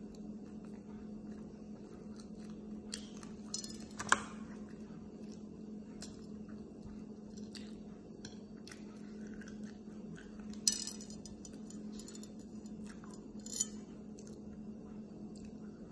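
Eating sounds close to the microphone: chewing, and a metal fork clinking against a ceramic plate, the sharpest clink about four seconds in, with a few more clicks later. A steady low hum runs underneath.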